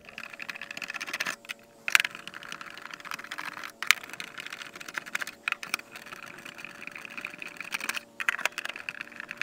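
Sped-up sound of a Phillips screwdriver backing screws out of a plastic radio case: a rapid, dense run of small clicks and scrapes, with a few sharper clicks.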